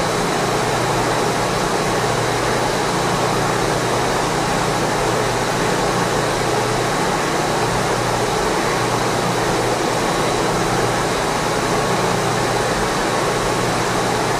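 Ross 40-gallon double planetary mixer running, a steady, even mechanical hum from its single-speed drive.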